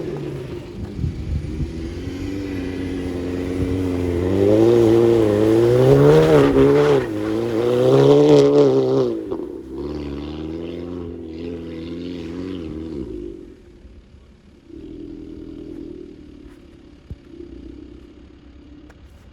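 Straight-piped Audi S3 8P's turbocharged four-cylinder under acceleration, its exhaust note rising and wavering in pitch for several seconds. About halfway through it falls off as the throttle closes, with crackles on the overrun, then settles to a quieter, lower running note.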